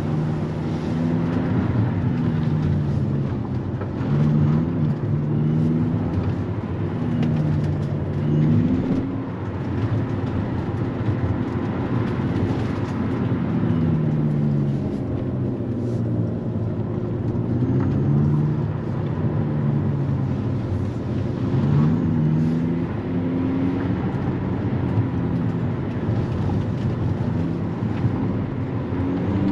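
Abarth 500e's synthetic engine sound, played by its sound generator on an electric car, rising and falling in pitch again and again as the car accelerates and eases off, over steady road and tyre noise.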